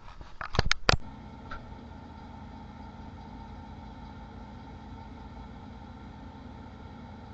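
A few sharp clicks or knocks in the first second, then a steady low mechanical hum, like an idling engine or a running machine.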